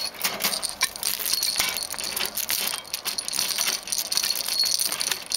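Wire cage door rattling and clinking as a ferret tugs at a toy fastened to the bars: an irregular clatter of quick clicks and jangles.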